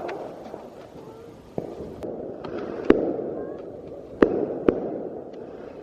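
Fireworks going off: several sharp bangs, the loudest about three and four seconds in, over a continuous rumble and crackle of more fireworks.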